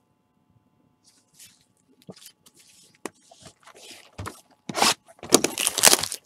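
Plastic wrapping on a trading-card box rustling and crinkling as gloved hands handle it. It is soft at first, then turns into loud, dense crinkling for about a second and a half near the end.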